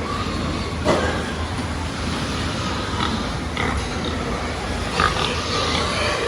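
A group of pigs grunting and squealing over a steady background noise, with two louder, sharper sounds about a second in and again about five seconds in.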